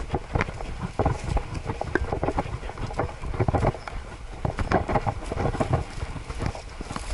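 A Siberian husky's footfalls jolt the camera strapped to its back, giving irregular knocks and rustles with each stride over a low wind rumble on the microphone.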